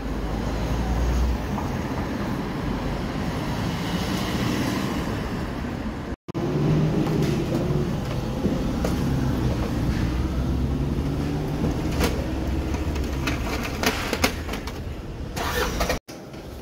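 City street traffic noise with a vehicle engine running, its drone wavering in pitch, and a run of sharp clicks and knocks near the end. The sound drops out abruptly twice.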